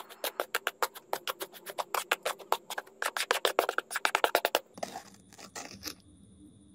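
Small metal trowel rapidly clicking and tapping against a board while stirring wet cement, many uneven taps a second. About two-thirds of the way in it gives way to a few softer scrapes of the trowel through the cement.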